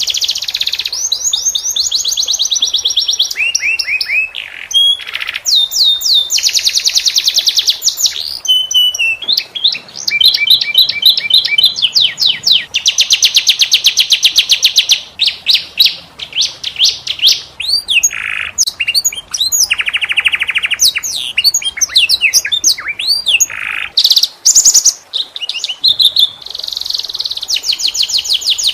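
Domestic canary singing a long song of fast rolling trills and rapidly repeated high notes, changing pitch from phrase to phrase with short breaks between them.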